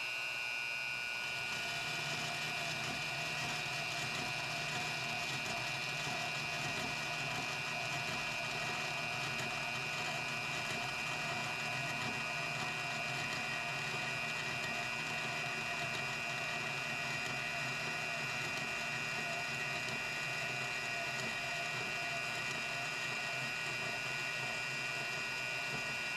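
DeWalt DWM120 corded portable bandsaw (Portaband) running at a steady speed, a constant motor-and-blade whine, while its blade cuts through a piece of 1/8-inch steel.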